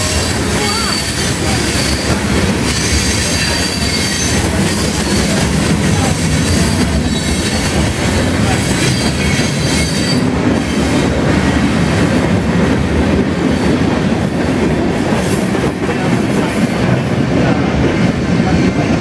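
Freight cars of a mixed train (covered hoppers, flatcars and tank cars) rolling past close by: a steady rumble and rattle of wheels on rail with clickety-clack over the joints, and a faint high wheel squeal in the first few seconds.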